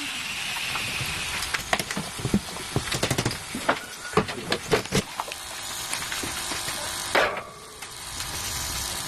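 A quick run of sharp clicks and knocks, like tool work on metal parts, over a steady hiss, with a louder stretch of hiss near the end.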